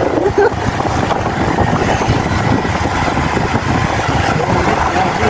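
Vehicle driving along a rough, stony dirt road: engine and jolting road rumble.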